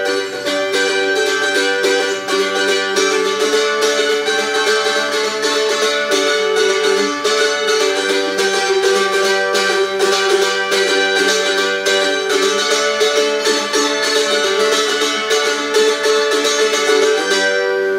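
Eight-string mandolin played acoustically with a pick: a steady stream of quick picked notes on its paired strings, stopping shortly before the end.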